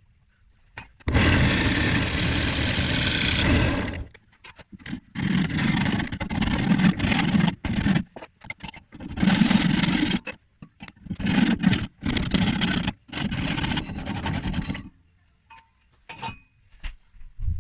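Woodworking power tool cutting timber in several bursts of one to three seconds each, stopping and starting between them.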